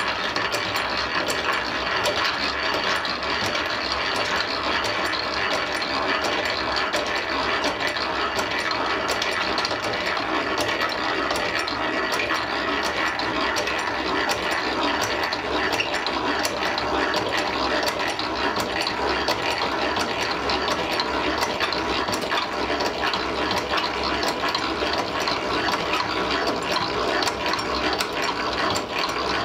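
Silver Mfg Co hand-cranked blacksmith drill press being cranked steadily, its gears and feed ratchet clicking rapidly and without a break as a 3/8-inch bit bores into steel bar.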